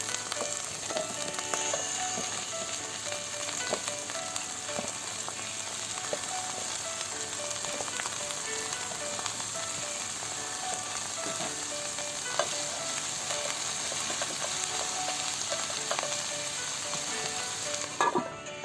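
Mushrooms and wombok (napa cabbage) stir-frying in a hot pan: a steady sizzle, with a utensil clicking against the pan now and then and a louder clatter near the end.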